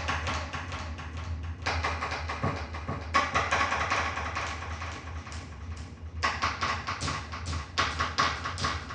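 Rapid runs of clicks and taps from an electronic keyboard's sound-effect voice, several a second, with two short breaks.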